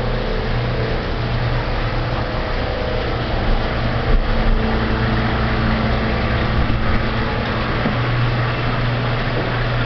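Steady low hum of the koi tanks' water pumps under an even rush of splashing, churning water from the pumped filtration and aerated tanks.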